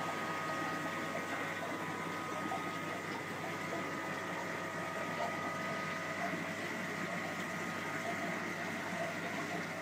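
Steady aquarium filtration noise: pumps running and water flowing, with a couple of faint, steady high whines.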